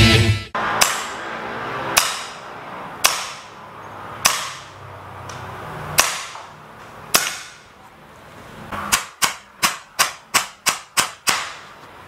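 Edgun Leshiy 2 semi-automatic PCP air rifle firing: six single shots about a second apart, then a rapid string of about nine shots at three or four a second. Each shot is a sharp crack that dies away quickly.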